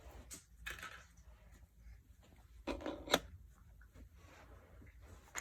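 Plastic Lego pieces being handled: faint rustling and clattering, with a sharp click about three seconds in.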